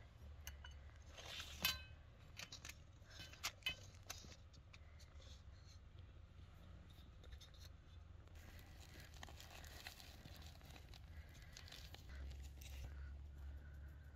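Faint sharp clinks and knocks of a metal baking pan as it is taken off a baked pie, then a plastic packet of powdered sugar crinkling and tearing as it is cut open with a knife.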